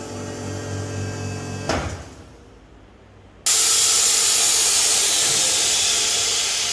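DZ-850 chamber vacuum packing machine working through its cycle. The vacuum pump hums steadily and stops with a click as the machine switches to sealing, and after a short quieter pause, air rushes back into the chamber with a sudden loud hiss that slowly fades as the chamber vents.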